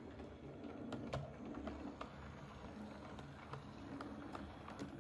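OO gauge model locomotive and coaches running on the track: a faint, steady motor and wheel rumble with irregular clicks as the wheels pass over rail joints.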